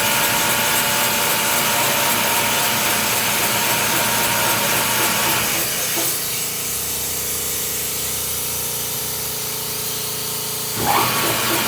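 Hofer case clamp running through its clamping cycle: a steady machine sound with strong hiss that drops to a quieter, lower hum about five and a half seconds in, then picks up again near the end.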